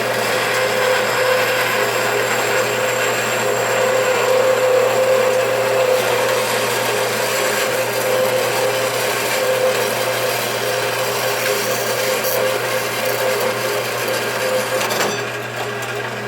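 Band saw cutting through thick brass stock: a steady rasping cut with a steady tone over it. Near the end the cutting sound drops off, leaving the saw running.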